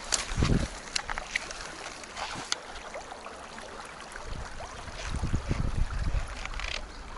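Shallow river running over stones, a steady rushing with small ticks of water, and gusts of wind buffeting the microphone shortly after the start and again from about five seconds in.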